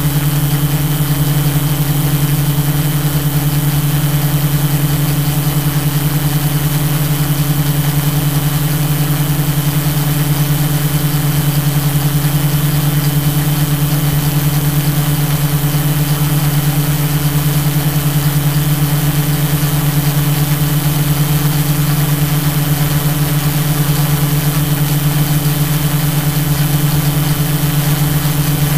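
Tarot 680 Pro hexacopter's six motors and propellers humming steadily in flight, heard through its onboard camera: a loud, even low hum with a faint high whine above it.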